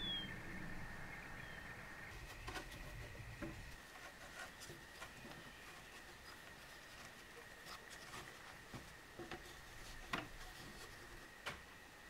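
Quiet outdoor ambience, a low rumble with one short bird chirp at the start, gives way after a few seconds to faint taps and rustles of hands handling linen fabric in a wooden embroidery hoop. A steady high-pitched tone runs underneath throughout.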